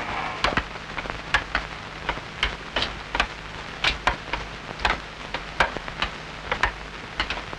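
Irregular sharp crackles and clicks, a few each second, over a soft steady hiss.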